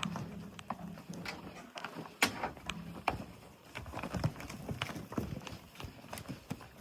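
Irregular clopping of livestock hooves on the ground, sharp uneven knocks with the loudest about two seconds in. A low cow lowing runs under the first three seconds.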